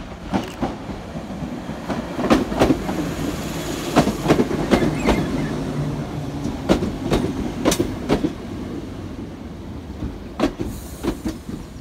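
ScotRail Class 318 electric multiple unit arriving along the platform: a low running rumble with its wheels clicking in pairs over the rail joints as the coaches pass.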